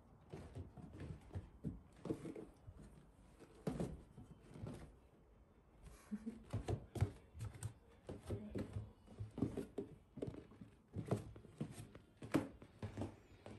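Irregular soft thumps, knocks and rustles on a wooden floor and stairs: footsteps and handling noise from a handheld phone following a cat.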